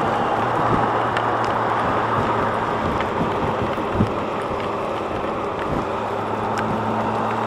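Yamaha FJR1300A motorcycle riding at road speed in heavy rain: a steady rush of wind and spray over the microphone, the low steady hum of the inline-four engine underneath, and scattered sharp ticks.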